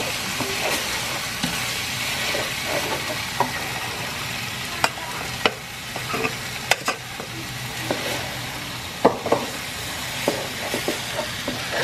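Half-cooked rice being stirred into sizzling jambalaya in a large frying pan with a wooden spoon: a steady sizzle with scraping, and the spoon knocking sharply against the pan several times.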